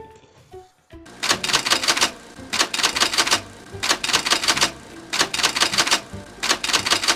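Typewriter sound effect: five bursts of rapid mechanical key clacks, each lasting under a second, starting about a second in.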